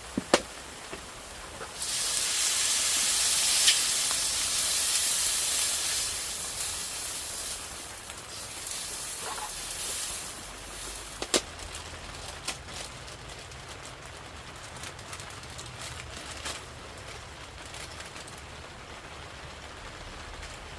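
A loud hiss of steam that starts suddenly about two seconds in and dies away over several seconds, with a sharp click just before it and scattered clicks afterwards. Rain keeps falling throughout.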